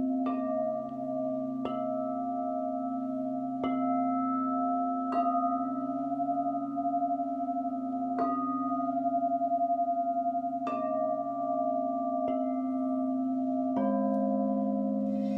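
Clear quartz crystal singing bowl ringing with a sustained, wavering hum, struck about eight times at uneven intervals so the ringing swells again after each strike. Near the end a lower-pitched tone takes over.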